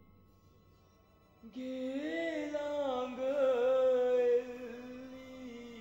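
A single voice singing a slow melody, coming in about a second and a half in after a brief hush, its pitch bending and sliding, then settling on a long held note that fades near the end.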